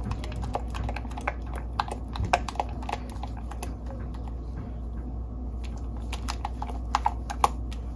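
A silicone spatula stirring thick cream cheese frosting in a glass bowl: a run of quick, irregular clicks and taps against the glass.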